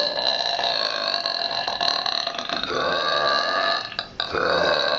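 A girl burping: one long, drawn-out burp that ends almost four seconds in, followed almost at once by a second one.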